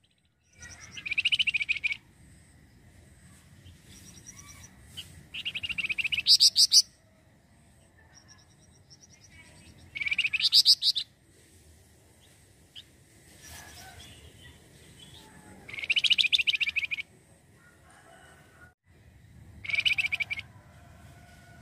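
Javan fulvetta (wergan jawa, the 'flamboyan' of Indonesian bird keepers) singing. It gives five fast chattering trills of about a second each, a few seconds apart.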